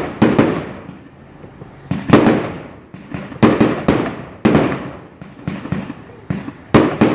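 Aerial firework shells bursting overhead: a series of sudden loud bangs, about one every second or so, each fading away after the blast.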